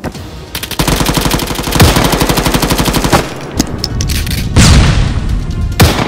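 Gunfire sound effects: long rapid bursts of automatic submachine-gun fire, then a few single shots and two heavy, echoing blasts near the end.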